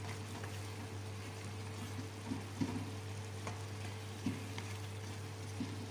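Chopped eggplant sizzling in a nonstick frying pan while a spatula stirs it, knocking against the pan several times through the middle and near the end, over a steady low hum.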